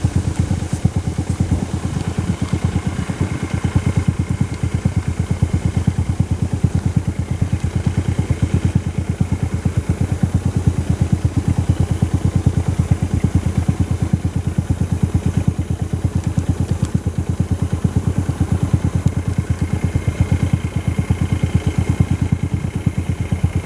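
Vehicle engine idling steadily close to the microphone, an even, fast low chugging that does not change, with a faint high steady whine above it.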